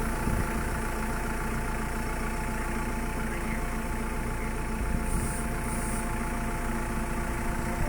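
JCB 3CX backhoe loader's diesel engine running steadily at a low, even speed.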